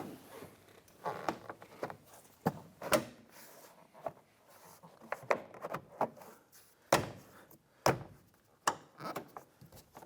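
Interior door panel of a Ford Ranger being pressed and knocked into place on the door, its retaining clips snapping into the door shell: a series of irregular knocks and thunks, the two loudest about three-quarters of the way through.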